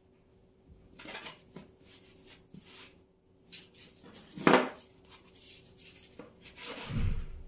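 Kitchen handling sounds: rubbing and light knocks of utensils and cookware. One sharper knock comes about four and a half seconds in, and a dull thump near the end.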